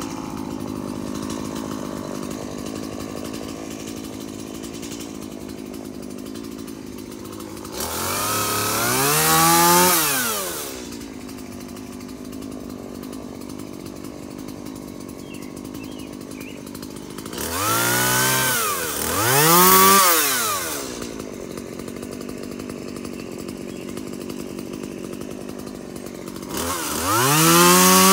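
Stihl two-stroke chainsaw idling steadily, revved up to full speed three times, each rev climbing in pitch, holding for a few seconds and dropping back to idle, as it cuts overhead tree branches.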